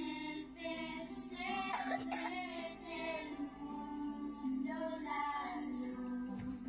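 Quiet music with a high voice singing over a held low note.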